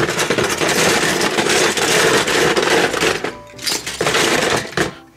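Toy Mater cars, mostly die-cast, clattering against one another as they are dropped into a fabric carry case, a dense run of clicks and knocks that eases briefly past the three-second mark and then picks up again.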